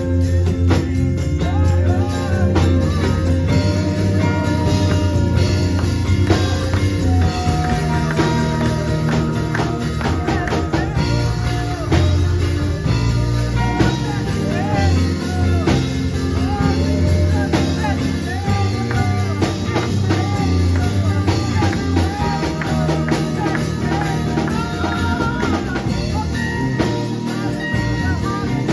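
Live church band playing an instrumental groove: electric bass guitar and drum kit carrying a heavy, steady low end, with electric guitar and keyboard playing a bending, wavering melody on top.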